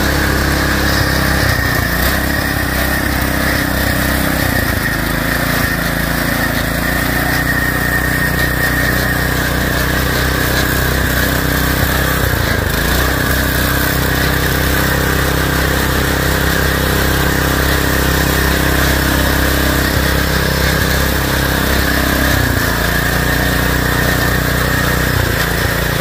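A DuroMax 212cc single-cylinder four-stroke engine running under load on a lawn-tractor go-kart, close by, as the kart drives through tall grass. The note holds mostly steady, with a small change in engine speed near the end.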